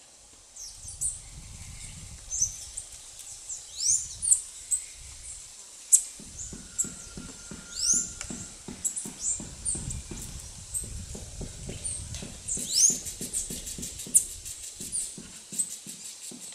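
Ingram's squirrel gnawing a hard jerivá palm nut with its incisors: a quick, even run of short gnawing scrapes, about four a second, plainest from about six seconds in. High chirping calls sound over it throughout.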